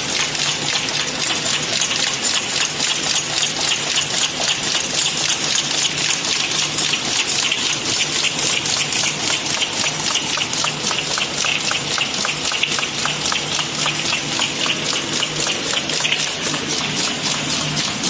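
Automatic cartoning machine running at speed, boxing 150 ml glass syrup bottles: a rapid, even clatter from its mechanism over a steady low hum.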